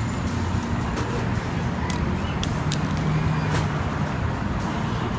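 Busy street background: steady traffic noise, with a few short sharp clicks between about two and four seconds in.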